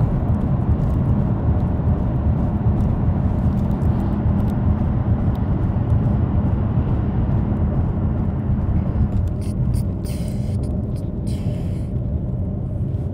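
Steady low rumble of road and engine noise inside a moving car's cabin, with two short hissy swells near the end.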